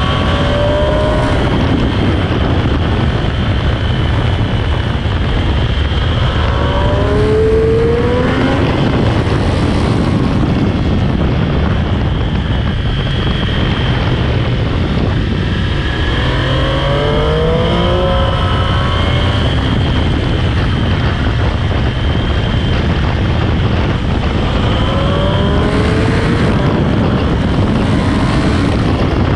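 Sport motorcycle on stock exhaust accelerating hard on a track, its engine pitch rising through the gears about four times, under heavy wind rush.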